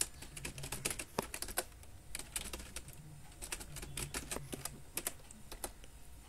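Typing on a computer keyboard: quick, uneven runs of key clicks with short pauses between them.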